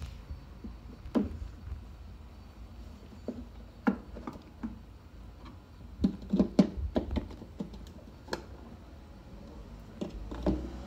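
Scattered clicks and knocks of plastic tail lamp bulb sockets and their wiring being handled and fitted into the lamp housing, with a quick run of clicks about six seconds in, over a low steady hum.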